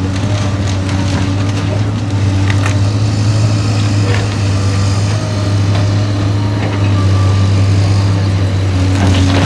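Heavy demolition machine's engine running steadily under load, with a few sharp cracks of the house's material breaking.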